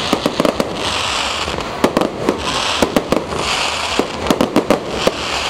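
Aerial fireworks display: a rapid, irregular series of sharp bangs and pops from bursting shells. Short bursts of hiss come roughly every second.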